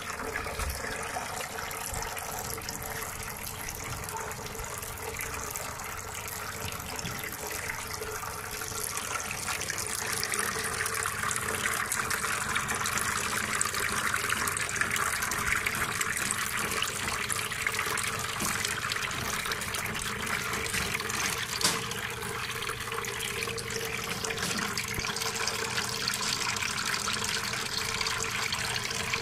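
Water falling in thin streams from a row of holes in a homemade tabletop fountain's upper tray and splashing into the basin below: a steady splashing trickle, growing louder about ten seconds in.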